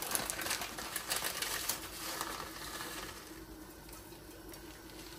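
Cumin seeds (jeera) crackling and spluttering in hot oil in a pot: a quick scatter of small pops that thins out after about three seconds.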